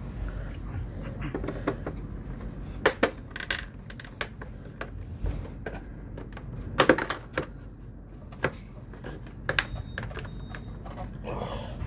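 Irregular sharp plastic clicks and snaps as a plastic trim pry tool works apart the fairing panels of a Honda PCX 125 scooter, prying at the clips. The loudest snap comes about seven seconds in.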